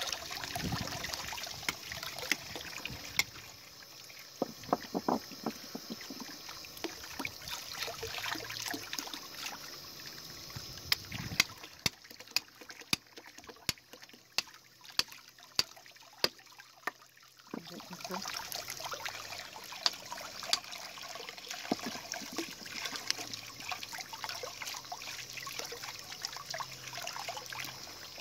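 Water running from a hose over raw rabbit meat as it is rinsed by hand, splashing into a steel bowl of water, with many scattered sharp clicks. The running water drops away for several seconds about halfway through, leaving only the clicks, then comes back.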